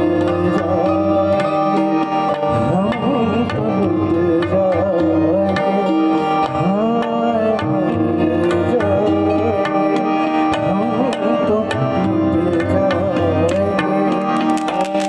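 Live ghazal music: tabla playing a steady rhythm under held harmonium tones and acoustic guitar, with a male voice singing long gliding phrases at intervals.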